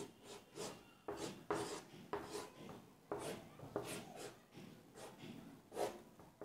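Chalk on a blackboard: faint, short, irregular scratching strokes of drawing lines and rings.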